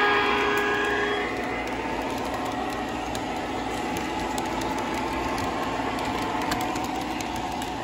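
Lionel three-rail O gauge model train running: a steady rolling rumble of wheels and motor on the track with faint ticks. A held multi-note horn tone from the Alco PA locomotive's sound system cuts off about a second in.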